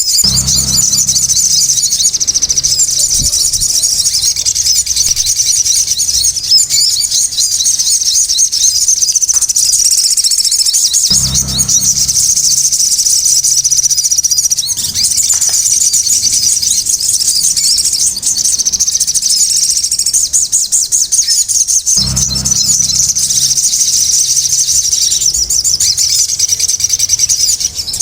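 Crimson sunbirds (sogon) singing loudly and without pause: a dense stream of fast, high twittering chirps and trills. A low hum comes in for a few seconds three times, about every eleven seconds.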